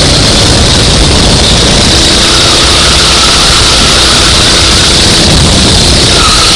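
Go-kart engine running at speed, very loud and constant, with its pitch shifting slightly as it changes speed.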